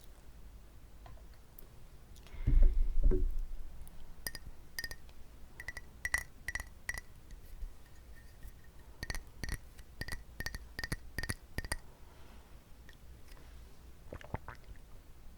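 About a dozen light, sharp clinking taps on something glassy, each leaving a brief high ring. A short, louder low rustle comes just before them.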